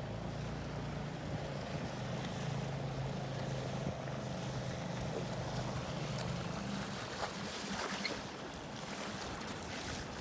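A small dinghy outboard motor running steadily over wind and water noise. Its note rises briefly about six and a half seconds in, then fades, leaving water slapping and splashing near the end.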